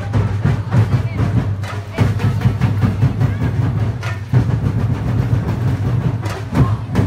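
Sinulog festival percussion ensemble drumming a fast beat of dense, closely spaced drum strokes accompanying the street dance.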